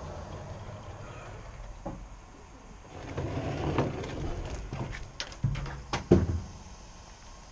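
A run of sharp knocks and clatters, the loudest about six seconds in, from handling the metal frame and crates of a pigeon transport trailer.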